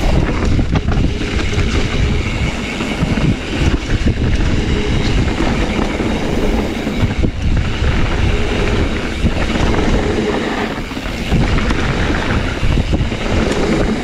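Wind rushing over the microphone and a mountain bike's tyres rumbling over a dirt trail, with frequent knocks and rattles as the bike goes over rough ground.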